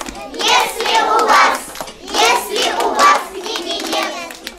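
A group of young children singing together in high voices and clapping their hands along.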